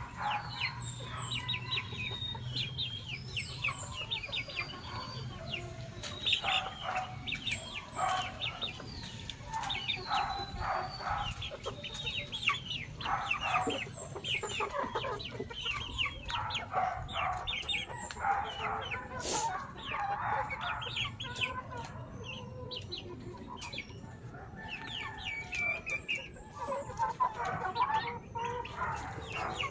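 A flock of young Filipino native chickens clucking and calling, with many short calls overlapping throughout.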